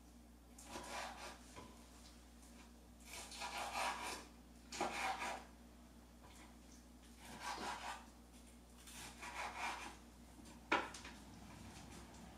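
Kitchen knife sawing through pieces of raw wild boar meat on a wooden cutting board, in about five short bouts of scraping strokes, with a single sharp knock near the end.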